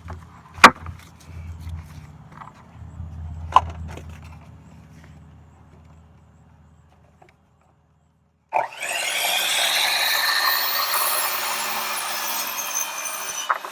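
A few sharp knocks over a low hum, then, a little over halfway in, a power saw starts and cuts through a wooden deck board, a loud whine that bends in pitch under the load.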